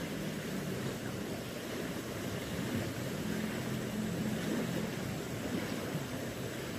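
Steady rush of flowing river water with a faint low hum underneath.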